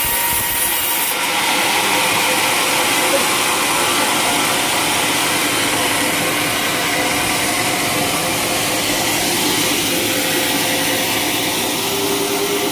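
Sawmill saw running with a steady, loud machine noise, working through coconut wood.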